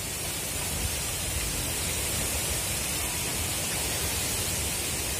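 Wind buffeting the microphone: a steady rushing hiss over an uneven low rumble.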